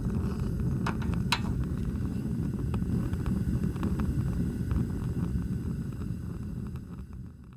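Fire sound effect of an animated flaming logo intro: a low rumble with a few sharp crackles about a second in, slowly fading away near the end.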